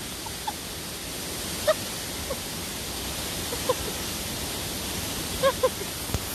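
Steady rushing hiss of water still running behind the ice of a frozen waterfall. Several short, faint pitched calls rise above it every second or two.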